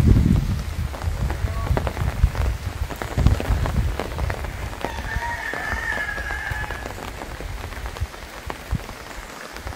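Steady rain falling, with many separate drops ticking close by and low rumbling in the first second or so. A faint drawn-out tone sounds for about two seconds around the middle.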